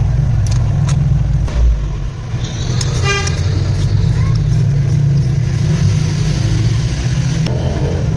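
Steady low rumble with a brief horn toot about three seconds in and a few scattered clicks.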